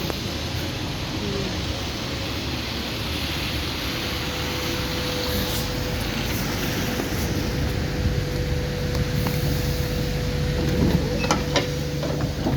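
ADL Enviro400 Hybrid bus heard from inside: a steady low drone of the drivetrain, with a steady whistle held at one pitch. The low hum strengthens about two-thirds of the way through, and a few sharp clicks come near the end.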